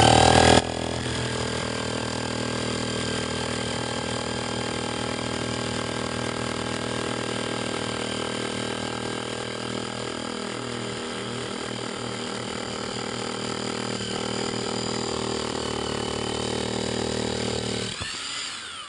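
Hammer drill with a 2-inch core bit boring through face brick. It starts with a loud rising spin-up, runs steadily for about eighteen seconds, then winds down and stops near the end.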